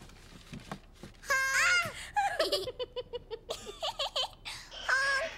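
Two young children laughing and giggling, with a quick run of short laughs in the middle.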